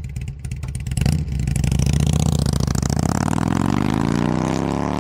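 Motorcycle engine running with an even pulsing beat, a sharp knock about a second in, then revving up with a steadily rising pitch through the second half.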